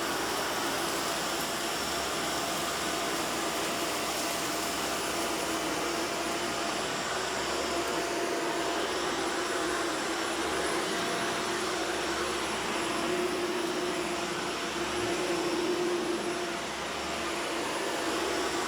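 Shark Vertex AZ2002 upright vacuum cleaner running on a hardwood floor: a steady rushing of air over a constant motor hum, dipping slightly near the end.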